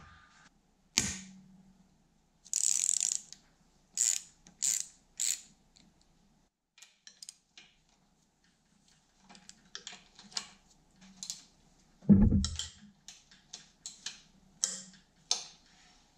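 Socket ratchet clicking in short irregular runs as the rusty handlebar clamp bolts on a Yamaha YZ250 dirt bike are undone, mixed with scrapes and knocks of parts coming off the handlebar. A single loud clunk sounds about three-quarters of the way through.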